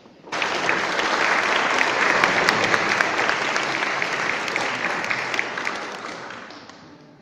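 Audience applauding: a burst of clapping that starts abruptly just after the start, holds, then slowly dies away over the last two seconds.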